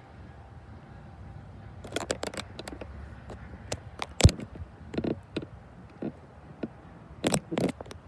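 Irregular sharp clicks, taps and scrapes close to the microphone over a faint low rumble, starting about two seconds in; the loudest click comes about four seconds in and a pair of louder scrapes near the end.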